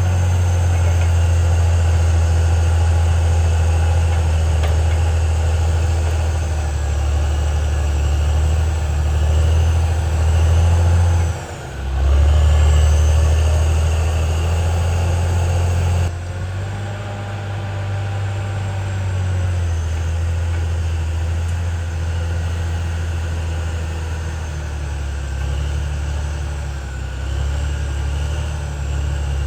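Caterpillar D6R XL bulldozer's diesel engine running steadily under load. Its note dips briefly a little over a third of the way in, comes back louder for a few seconds, then drops suddenly to a lower, steady level about halfway through.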